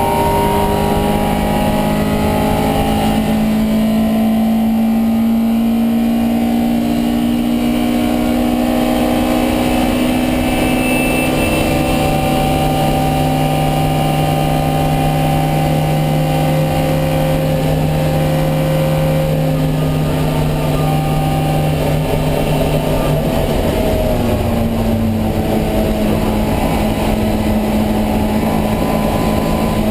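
Alfa Romeo Giulia 1600's twin-cam inline-four running hard, heard onboard the race car. Long stretches of steady engine note drop to a lower pitch about a third of the way in and climb again near the end.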